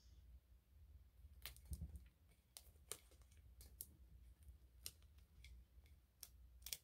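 Near silence broken by a dozen or so faint, scattered light clicks and taps as fingers with long nails handle small vinyl decal pieces and press them onto a tumbler.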